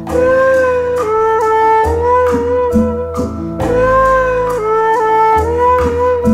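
Background instrumental music: a melody of held notes over a steady beat and bass.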